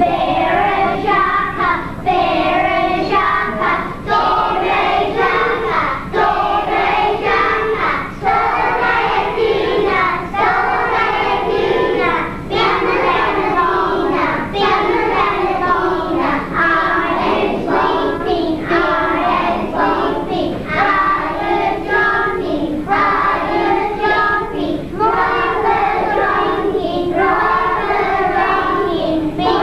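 A class of young children singing a song together in one voice, phrase after phrase, with no break.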